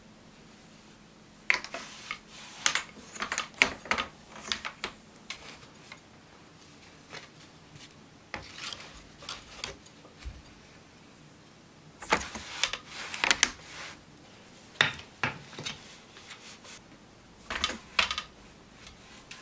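Rigid heddle loom worked by hand: five bursts of clicking, knocking and rubbing from its wooden frame and heddle, separated by short quiet spells.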